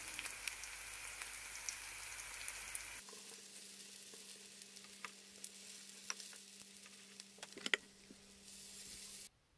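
Oil sizzling as grated zucchini-and-cheese fritters shallow-fry in a pan. About three seconds in it turns quieter, with a steady low hum and scattered crackles and ticks.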